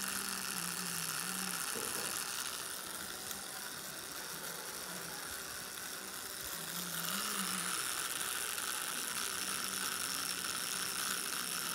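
Electric tattoo machine running with a steady mechanical whir, dipping in level for a few seconds midway.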